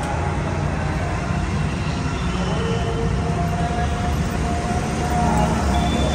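Steady low rumble of street traffic, with a few faint held tones above it.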